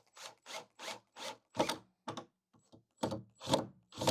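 A rag rubbed back and forth over a glued wood joint, wiping off squeezed-out wood glue, in quick strokes about three a second with a short pause partway through.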